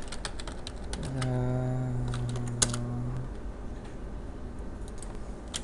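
Computer keyboard typing, irregular key clicks. A steady low hum with a few overtones joins about a second in and stops about two seconds later.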